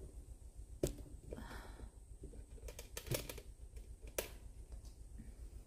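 Light handling noises: a few sharp clicks and taps, the loudest about a second in, with a brief rustle in between.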